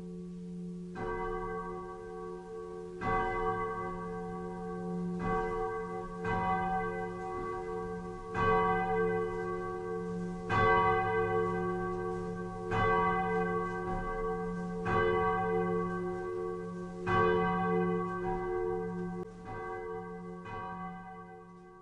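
A church bell swinging in its belfry and ringing, its clapper striking about every two seconds and each stroke ringing on into the next. The ringing fades away near the end.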